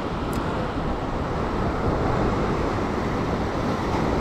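Surf washing and breaking over a rock ledge, a steady wash of noise with wind rumbling on the microphone.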